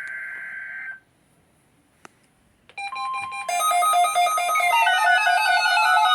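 A buzzy electronic tone cuts off about a second in. After a short silence and a single click, loud electronic music of quickly stepping notes with several falling glides starts near the three-second mark.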